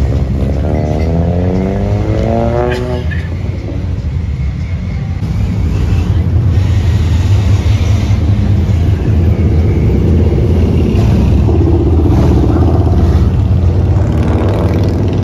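Car engines on a street cruise, with one engine revving up and rising in pitch over the first few seconds. A deep, steady exhaust rumble follows, louder from about six seconds in, as a modified widebody Ford Mustang rolls slowly past close by.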